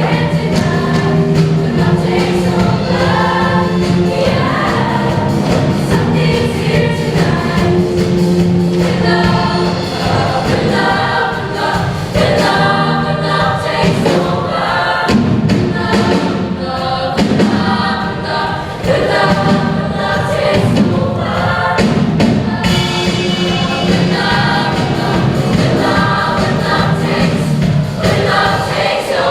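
A show choir singing a pop song in full ensemble, backed by instruments.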